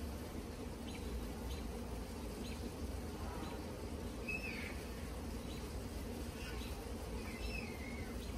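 Honeybees buzzing steadily around an open hive as a frame covered in bees is lifted out. Two short high chirps come about four and a half and seven and a half seconds in.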